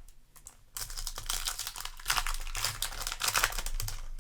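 Foil booster-pack wrapper crinkling and tearing, a dense crackle that starts about a second in and runs for about three seconds.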